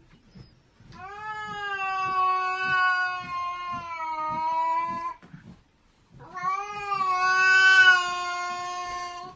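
Angry cat caterwauling: two long, drawn-out yowls, the first about four seconds and the second about three, each held at a nearly steady pitch with a short pause between.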